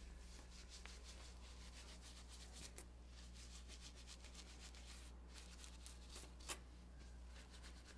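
Near silence with faint rubbing and light ticks of hand-sewing: seal skin being handled and thread drawn through it with a needle, over a low steady hum. One slightly louder tick comes about six and a half seconds in.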